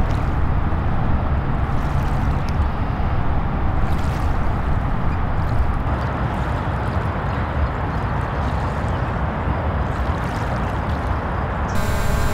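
Shoreline ambience: a steady low rumble with light water gurgling along the shore. Near the end, a small quadcopter drone's propeller whine starts suddenly and holds a steady pitch.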